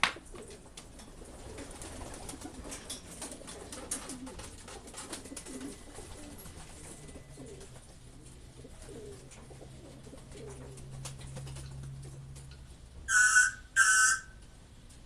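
Racing pigeons cooing in a loft. Near the end, two loud, short electronic beeps come a little under a second apart.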